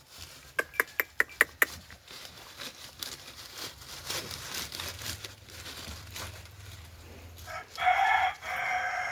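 Chickens: a quick run of about six sharp clucks about half a second in, then a rooster crowing once near the end, the crow broken in two parts.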